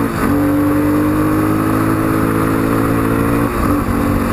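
Suzuki DR350 dual-sport motorcycle's single-cylinder four-stroke engine pulling steadily under way, its note slowly rising, with brief dips just after the start and again about three and a half seconds in. Wind rush sounds underneath.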